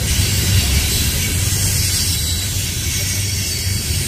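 Train passing, with a steady low rumble and a continuous hiss of wheels on the rails.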